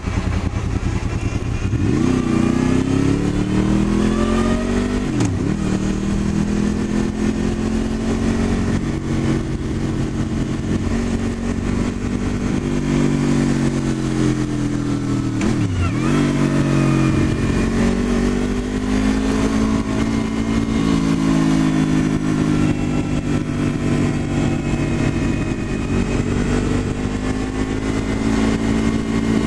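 Honda VFR800's V4 engine pulling the bike along, its revs rising and falling through the bends, with two sharp, brief dips about five and sixteen seconds in.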